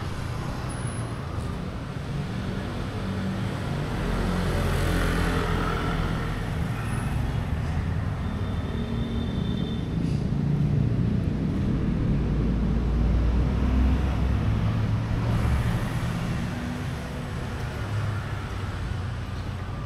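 Steady rumble of road traffic, swelling and easing with passing vehicles.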